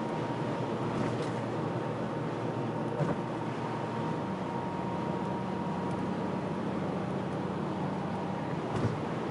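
Mercedes-AMG CLA 45 S cruising steadily at motorway speed, heard from inside the cabin: an even rush of tyre and road noise over a low engine hum, with a couple of light knocks from the road.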